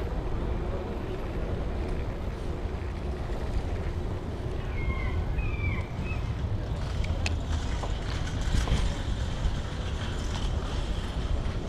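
Steady low rumble of wind and tyre noise picked up by a camera riding on a bicycle over brick-paved street. A few short high chirps come about five seconds in, and light clicks and rattles follow in the second half.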